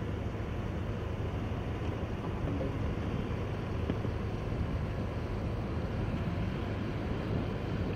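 Steady wind rumble on the microphone over outdoor ambience, with a faint steady high tone running through it.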